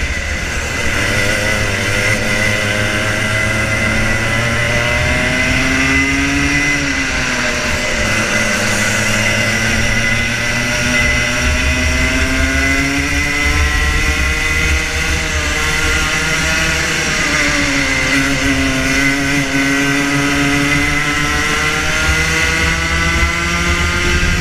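Rotax Junior Max 125cc two-stroke kart engine at racing speed. Its revs fall and climb again twice as it brakes for corners and accelerates out, under a steady high whine.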